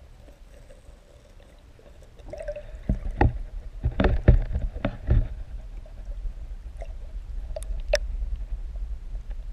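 Water sloshing and a low rumble heard through an underwater camera, with a cluster of knocks and splashes between about three and five seconds in, as a striped bass held on a plastic lip grip is worked in the water and released.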